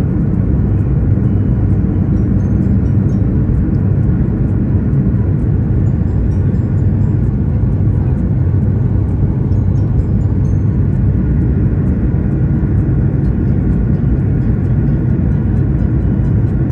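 Airliner cabin noise in flight or on approach: a steady, loud rumble of jet engines and airflow heard from inside the passenger cabin.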